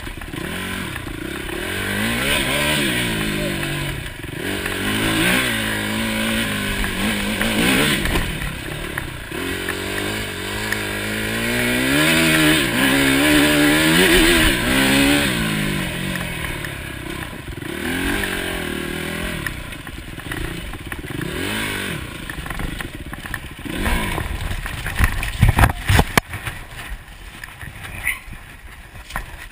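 Enduro dirt bike engine revving up and down hard, again and again, as the rider accelerates and backs off along a rough forest trail. Near the end come several hard knocks and clattering as the bike crashes and goes down, and the engine note drops away.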